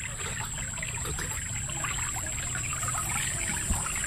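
Water trickling and dribbling steadily at the river's edge, with many small ticks and splashes. A steady high-pitched tone runs underneath.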